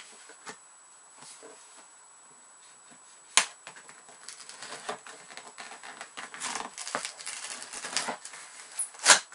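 Cardboard monitor box being handled and opened: scattered clicks and scraping, a sharp knock about three and a half seconds in, a busy stretch of rustling and scraping after that, and a loud knock near the end.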